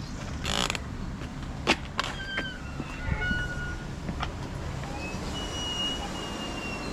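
A glass-panelled door's handle and latch clicking as the door is pulled open and walked through, with a sharp click just under two seconds in the loudest sound and a few lighter knocks after it. Several thin, high, steady squeaks follow.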